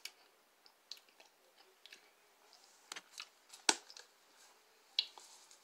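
Faint mouth and lip sounds of someone tasting barbecue sauce off a finger, then a few sharp clicks from a plastic spice shaker being picked up and handled, the loudest about three and a half seconds in.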